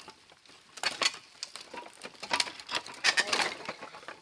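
Dry branches and brush rustling and crackling in several short, irregular bursts, the loudest about three seconds in.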